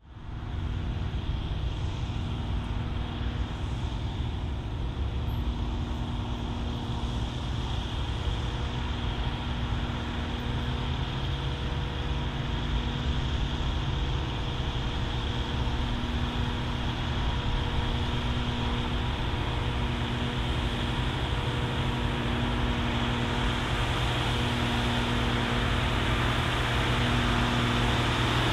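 Big farm tractor's diesel engine running steadily under load while pulling a cultivator, its steady hum growing slightly louder near the end.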